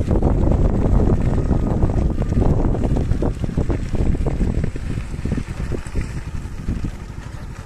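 Heavy wind buffeting the microphone, with the rumble of a moving vehicle, easing off about five seconds in.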